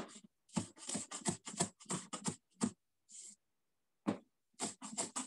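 Knife rough-chopping fresh cilantro on a cutting board: quick runs of chops at about four a second, stopping for a little over a second and starting again near the end.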